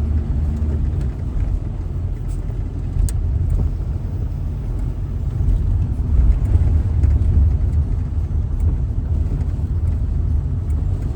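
Camper van on the move, heard from inside the cab: a steady low rumble of engine and road noise.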